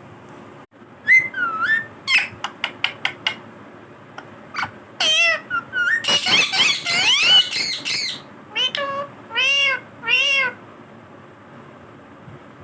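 Indian ringneck parrot calling: a string of short whistles and sharp clicks, a dense burst of chattering calls about halfway through, then a few longer wavering calls.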